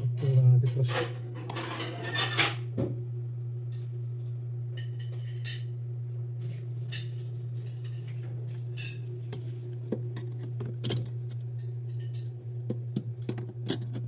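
Metal test-probe tips clinking and scraping against the aluminium fins and tubes of a refrigerator's evaporator coil, as scattered sharp clicks that are busiest in the first couple of seconds. A steady low hum runs underneath.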